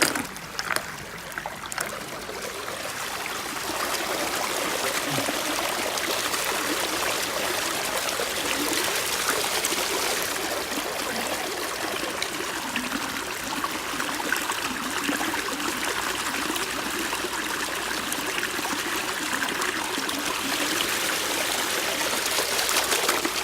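Steady rush of water pumped by an Atman HAS-20 pond pump, pouring out at a strong flow, growing louder over the first few seconds and then holding steady. A few knocks sound near the start.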